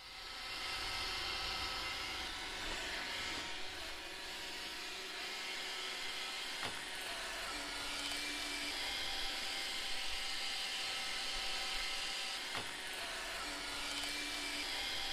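A power tool whirring steadily.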